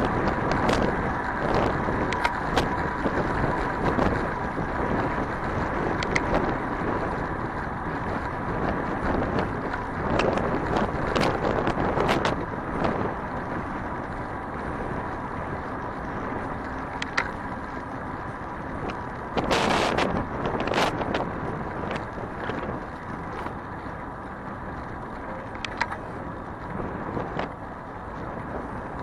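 A bicycle riding through city traffic, with wind rushing over the microphone, road and traffic noise, and frequent sharp clicks and knocks. About twenty seconds in, a louder rush of noise lasts about a second.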